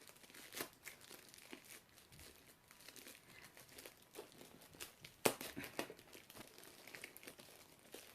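Packaging crinkling and rustling in the hands, with scattered small clicks and knocks, as a compact camera and its case are handled; one sharper click comes a little past five seconds in.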